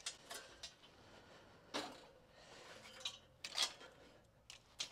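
A series of brief metal clanks and scrapes, the loudest about three and a half seconds in: a steel charcoal chimney starter being lifted and set down on a grill's wire cooking grate, and the grate being shifted by hand.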